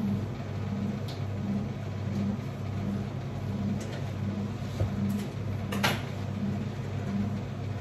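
Steady low motor hum that pulses about three times every two seconds, with a few faint clicks and a short crackle about six seconds in.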